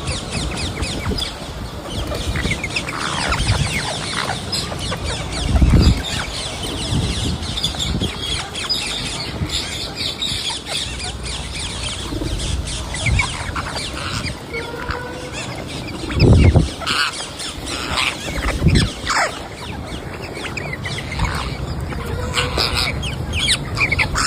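Parrot squawking and chirping in short calls, with a few dull low thumps, the loudest about six and sixteen seconds in.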